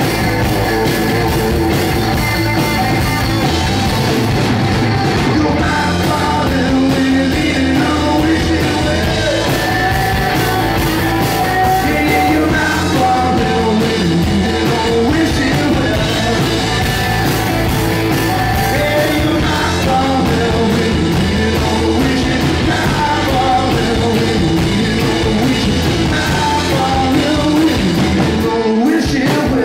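Live rock band playing: electric guitars, bass guitar and drums, with a man singing the lead vocal. The bass and drums drop out for a moment near the end.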